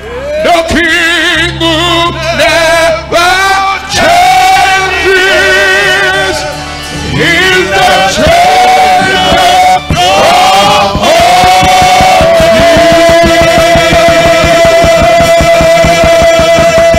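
Men's choir singing a gospel praise song with vibrato on the notes. In the second half the singing settles on one long held note while a steady drum beat comes in under it.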